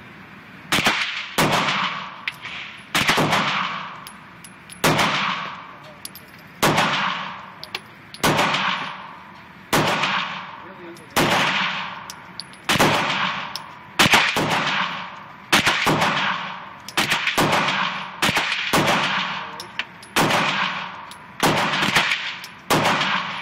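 Taurus PT 24/7 Pro DS 9mm semi-automatic pistol firing a long string of single shots, roughly one every second and a half, with a few quicker doubles. Each report rings out in the long echo of an indoor shooting range.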